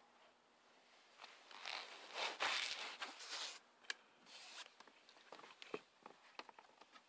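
Plastic parts scraping and rustling as a cabin air filter and its housing are handled, loudest about two to three seconds in, followed by a scatter of light clicks and taps.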